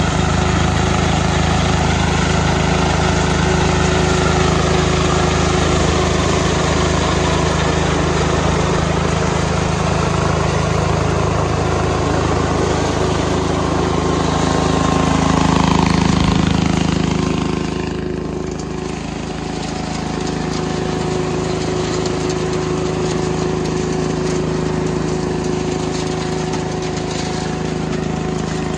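Kirloskar 12 HP mini combine harvester running steadily under load, its diesel engine and threshing gear going together as it cuts and threshes a dry crop. The sound swells slightly and then drops a little just past halfway.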